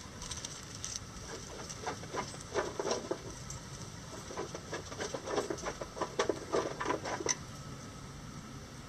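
Bantam chickens moving about in dry leaves: a quick run of short taps and rustles from about two seconds in until a little past seven seconds.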